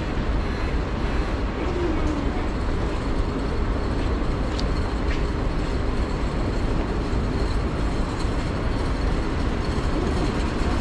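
Heavy rain and city street traffic: a steady wash of noise with a deep rumble underneath.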